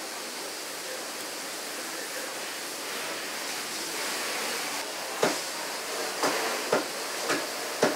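Steady background hiss, then from about five seconds in five sharp knocks, roughly half a second apart, of a knife striking a wooden cutting board while a large yellowtail is cut up for sashimi.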